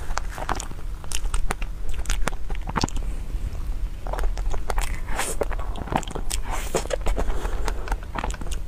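Close-miked eating sounds of soft whipped-cream cupcake: irregular wet smacking and chewing clicks, with a plastic spoon scraping the inside of the plastic cup.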